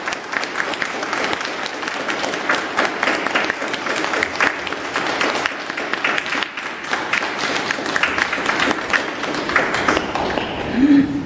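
A small audience applauding: dense, steady clapping. A short pitched sound rises and falls near the end.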